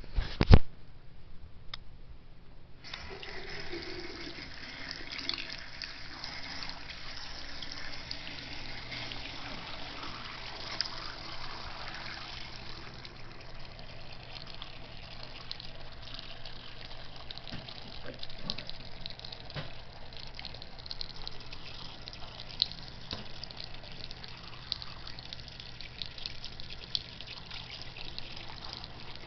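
A loud knock about half a second in, then a bathroom sink faucet comes on about three seconds in and runs a thin steady stream into the basin, splashing with small ticks as a cat puts his head into the water.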